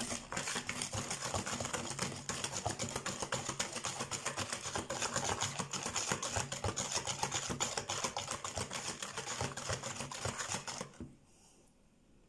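A fork beating cake batter in a plastic mixing bowl: fast, continuous clicking and tapping strokes that stop suddenly about eleven seconds in.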